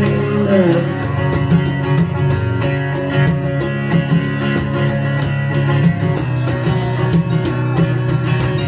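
Country song instrumental break: guitar playing over a steady beat, with no singing.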